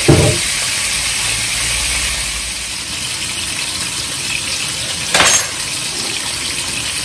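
Hilsa fish steaks sizzling steadily as they shallow-fry in hot oil in a non-stick pan, with a brief sharp knock about five seconds in.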